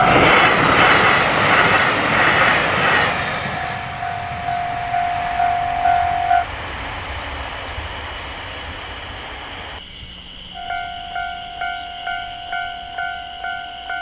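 A train rumbles and clatters over a railroad crossing while the crossing's warning bell dings about twice a second. The train noise fades and the bell stops abruptly about six seconds in. About ten and a half seconds in, another crossing's warning bell starts ringing at the same steady rate.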